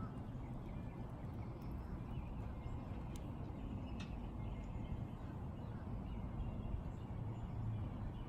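Outdoor ambience: a steady low rumble with faint bird chirps here and there and a couple of light clicks.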